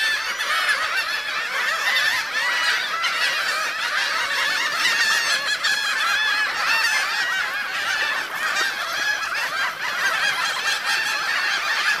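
A flock of gulls, among them small dark-hooded gulls, calling all at once while feeding on fish: a dense, unbroken chorus of many overlapping short cries.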